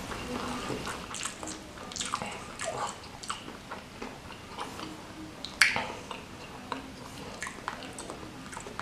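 Close-miked chewing and biting of spicy ayam geprek (smashed fried chicken in chili sambal): wet mouth sounds with scattered small crunches, and one sharper crunch a little past the middle.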